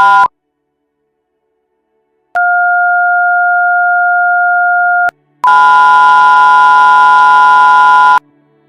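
Emergency alert system alarm tones. A loud chord of steady tones cuts off just after the start. After about two seconds of silence, a steady two-tone note sounds for nearly three seconds. After a short break comes a louder, buzzier chord of several steady tones, also lasting nearly three seconds.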